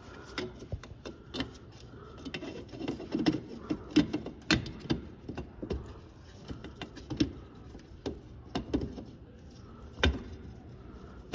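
Irregular plastic clicks, knocks and scrapes as an LED headlight bulb is handled and twisted in a cramped headlight housing, trying to find its locking position. The loudest knocks come about four and a half seconds in and near the end.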